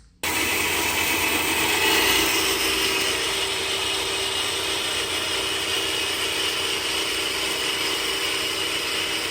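Metal-cutting bandsaw running steadily as it cuts through a ladder rung of metal stock: an even, grinding hiss with a faint steady hum. It starts abruptly just after the beginning.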